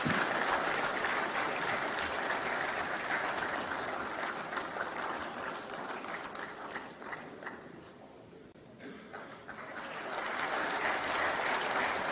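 Audience applauding, dying away to a low point about eight seconds in, then building again.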